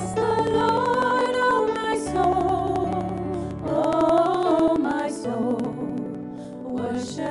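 Worship song from a praise band: several women singing together into microphones over keyboard accompaniment.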